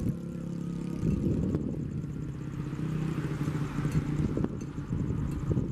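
Heavy diesel engine of a crane running steadily while it lowers a rail locomotive onto the track, with a few sharp knocks scattered through.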